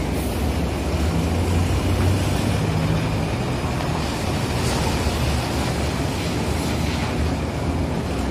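Diesel truck engine running as the truck rolls slowly past at low speed: a steady low rumble that swells about a second in and eases again after a few seconds.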